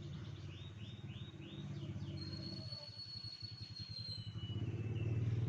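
Domestic canary singing: a run of quick falling notes, about three a second, then a long high whistle held for about two seconds, dropping to a lower held note near the end. A steady low engine hum runs underneath and grows louder toward the end.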